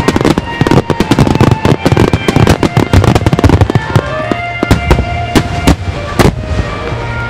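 Starmine barrage of aerial firework shells bursting in rapid succession, dozens of overlapping bangs that thin out after about four seconds to a few separate booms.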